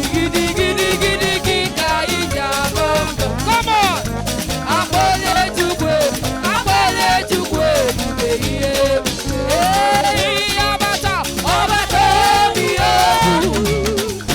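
Live church praise music: a band with a steady, busy percussion beat under a melodic line that glides and bends up and down in pitch.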